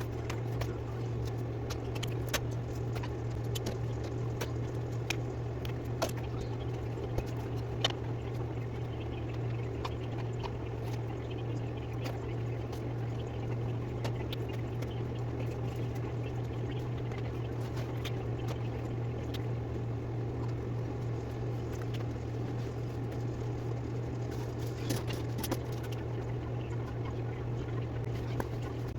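A steady low hum throughout, with scattered light clicks and knocks of toys and household items being picked up and put down.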